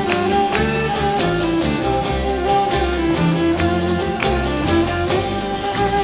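Instrumental interlude of a Greek Cypriot folk song played live on a bowed viola, a plucked laouto and bass, with no singing. The bowed melody runs over the bass line, and the laouto adds regular plucked strokes.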